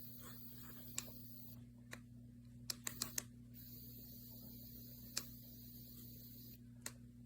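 About eight short, sharp clicks over a faint steady low hum, four of them in quick succession about three seconds in.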